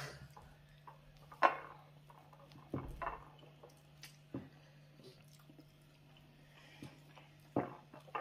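People eating injera by hand: a few short, separate smacking and chewing sounds, the loudest about a second and a half in, over a faint steady hum.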